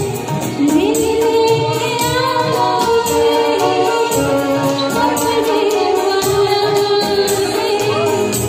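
A woman singing a Hindi film song live into a microphone, holding long, wavering notes over a steady rhythmic percussion accompaniment.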